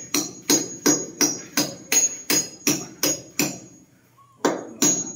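Fast, evenly spaced metallic strikes, about three a second, each with a bright jingling ring, pausing briefly near the end.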